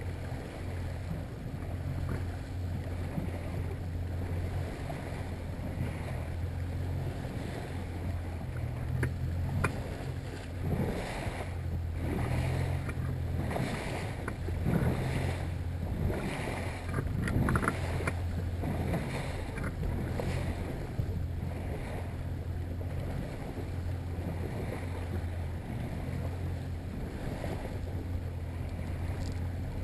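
Yamaha 70 hp outboard running steadily at trolling speed, about 1,200 RPM, a low steady drone under wind noise on the microphone. Water slaps against the hull in irregular splashes, most of them from about a third of the way in to about two thirds through.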